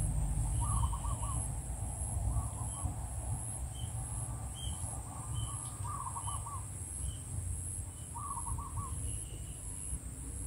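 A bird calling now and then in short, rapid trills of four or five notes, with faint single higher notes between them. Behind it is a steady high-pitched pulsing drone and a low rumble.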